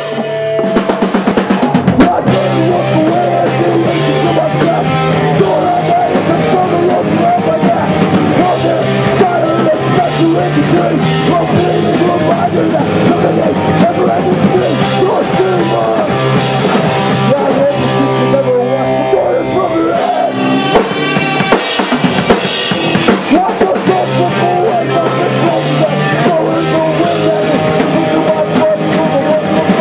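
Hardcore punk band playing live: distorted electric guitar, bass guitar and a pounding drum kit.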